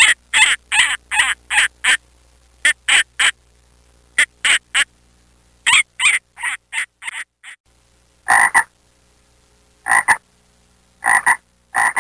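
Frog croaking: runs of short, quick calls, then after a brief break about seven seconds in, a few lower double croaks spaced a second or so apart.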